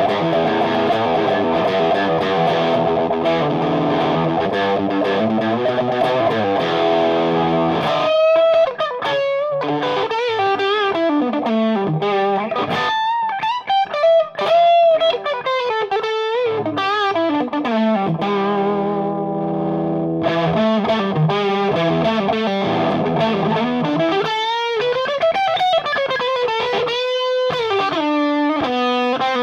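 Electric guitar (PRS S2 Custom 24) played through a Frantone Hep Cat overdrive pedal into a Marshall JVM amp's clean channel, giving a lightly distorted tone. It plays chords for about the first eight seconds, then single-note lead lines with string bends and vibrato.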